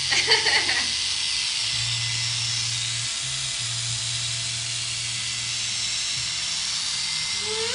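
Corded electric hair clippers running with a steady buzz and hiss as they shave long hair off a scalp; the buzz dips briefly about three seconds in.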